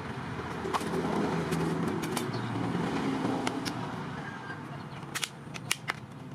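Sharp clicks and taps of a hard plastic fan blade being handled and cut, scattered through and bunched together near the end, over a low motor hum that swells and then fades.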